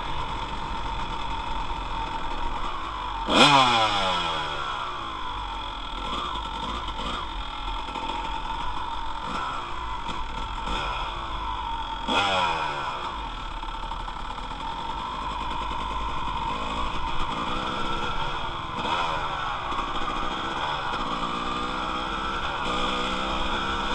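Dirt bike engine running at low speed under a helmet camera. The throttle is blipped sharply twice, about three seconds in and about twelve seconds in, with the revs falling away after each. Later come smaller rises and falls in revs.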